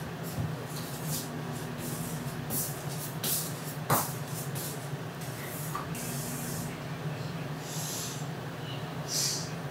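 A hair dryer running out of sight, heard as a steady, muffled low hum, with short soft rasping hisses scattered over it and one sharp click about four seconds in.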